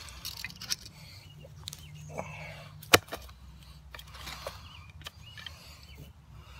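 Hands handling a stainless steel water bottle, with small ticks and rubbing sounds and one sharp click about three seconds in.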